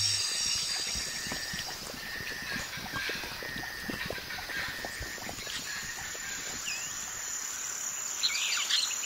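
Nature ambience of insects and birds: a steady high insect hum with many scattered small ticks, and a few bird chirps near the end.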